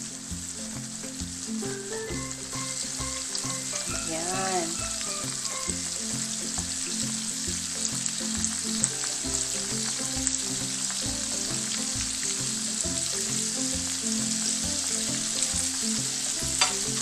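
Flour-and-egg battered squid deep-frying in hot oil: a steady crackling sizzle, with one sharp click near the end.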